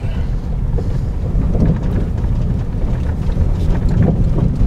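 Car driving along a rough gravel road, heard from inside the cabin: a steady low rumble of tyres and engine.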